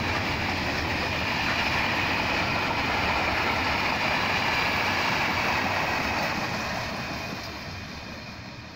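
Freight train hopper wagons rolling past on the rails, a steady rumble with a bright hiss from the wheels. It fades away over the last few seconds as the end of the train passes and moves off.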